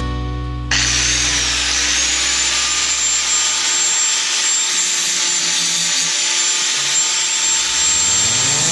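A power tool starts suddenly about a second in and runs steadily with a hissy, high-pitched sound, while background music fades out. Near the end a rising whine sets in.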